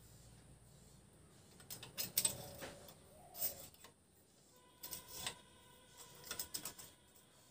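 Light metallic clicks and clinks, scattered and irregular, as a long flat steel bar is handled and slid against the motor housing and the wooden press plate.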